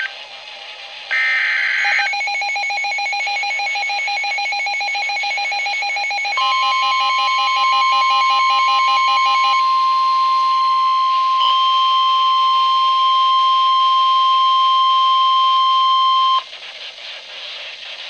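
The end of a NOAA Weather Radio SAME header, a short burst of buzzing data tones about a second in. Then a weather radio's rapid pulsing alert beeps start, and about four seconds later the National Weather Service's steady warning alarm tone joins them. The alarm tone holds about ten seconds and cuts off, marking the start of a new severe thunderstorm warning broadcast.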